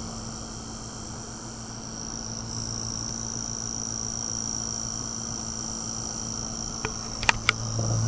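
Motor of a spinning LED persistence-of-vision display running at steady speed: a low hum with a thin high whine over it. A few sharp clicks come near the end.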